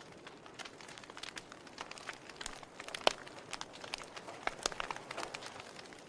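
Wood fire of burning logs crackling: irregular sharp pops and snaps over a faint hiss, with one loud pop about three seconds in.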